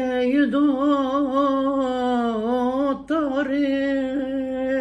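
An elderly woman singing a Uyghur folk song unaccompanied, in long held notes with a wavering vibrato. She breaks off briefly for a breath about three seconds in.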